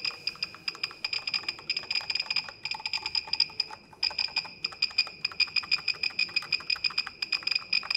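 Class80 mechanical keyboard typed on rapidly. Each keystroke comes with a short high ping from the keyboard's built-in speaker, which imitates the sound of an old typewriter.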